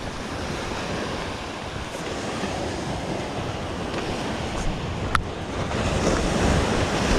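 Ocean surf breaking and washing up the beach, with wind buffeting the microphone; a wave swells louder near the end. One brief sharp click about five seconds in.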